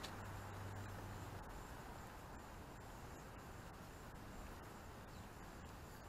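Faint outdoor background noise, a low steady hiss, with a low hum for about the first second and a half.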